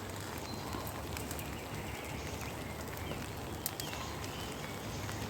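Steady rain falling in woodland, drops pattering on a tarp shelter overhead.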